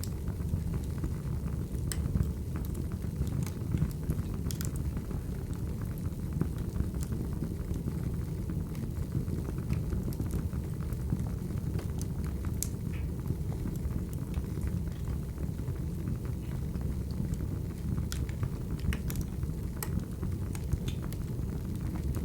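Crackling wood fire: a steady low rumble of burning logs with scattered sharp pops and crackles.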